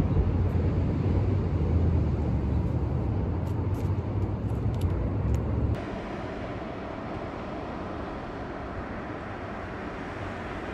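Strong offshore wind buffeting the microphone, a heavy low rumble that cuts off suddenly about six seconds in. After that a quieter, steady rushing noise of wind and surf.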